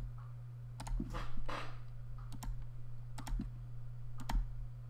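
Computer mouse clicking at an irregular pace, some clicks in quick pairs, as roto points are placed by hand, over a steady low electrical hum.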